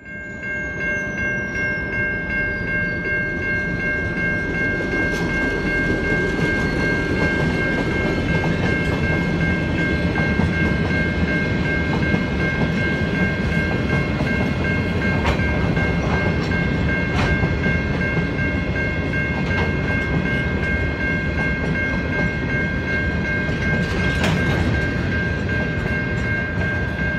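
Long freight train's wagons rolling past close by: a steady, heavy rumble of wheels on rail with occasional clicks and clunks, and a steady high-pitched tone sitting over it.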